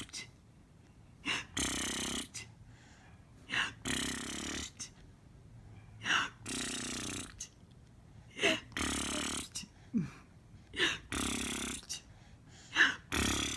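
A person repeatedly making a long, rough, snore-like buzzing noise, about six times, roughly every two seconds. Short high squeals or gasps come between them.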